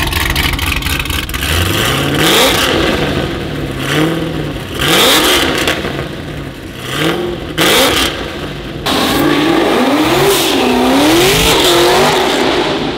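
Heavily modified Camaro ZL1's supercharged V8, built to about 1,300 wheel horsepower, revved hard while standing: a string of short rev bursts rising and falling in pitch, then a longer held rev near the end. Very loud.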